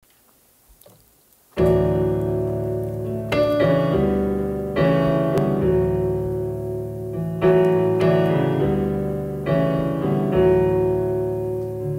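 Piano playing slow, sustained gospel chords, starting about one and a half seconds in. A new chord is struck every second or two and left to ring.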